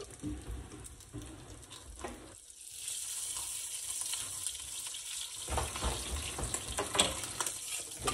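Shrimp pastelitos (dough turnovers) frying in hot oil in a frying pan, sizzling, the sizzle growing louder about a third of the way in. A few sharp clicks sound in the second half.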